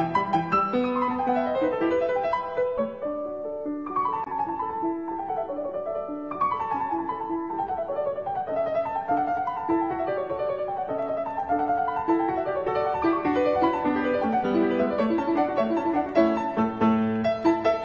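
Background instrumental music on a piano, a steady stream of notes with several quick falling runs.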